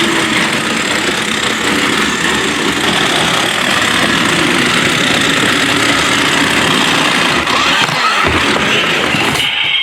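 Toy remote-control cars running, their small electric motors and gears making a steady loud whir that dips briefly near the end.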